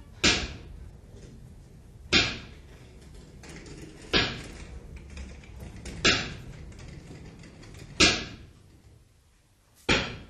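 Six sharp percussive knocks, evenly spaced about two seconds apart, each ringing briefly before dying away, over a low rumble that fades out near the end.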